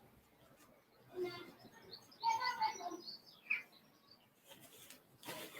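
Birds chirping in short, scattered calls over faint background noise.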